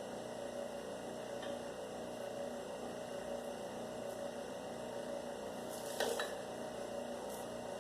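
Electric copper wire stripper's motor running with a steady hum between pieces of wire, with a short click about six seconds in.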